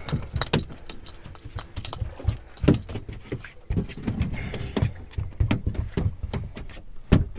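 Irregular knocks and thumps on a fishing boat as a freshly caught trout is landed and handled, with a louder knock near the end.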